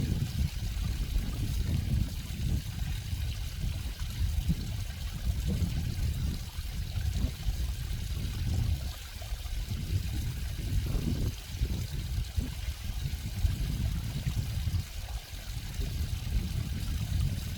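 Running water trickling and flowing, a steady rush with an uneven low rumble.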